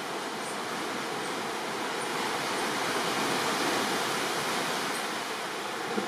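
Caribbean sea surf breaking and washing over shoreline rocks: a steady rushing wash that swells about three seconds in and eases again. A few faint, short high chirps sound over it.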